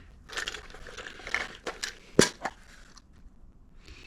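Rummaging through tools and small fittings: rustling and clicking, with one sharp knock a little after two seconds in.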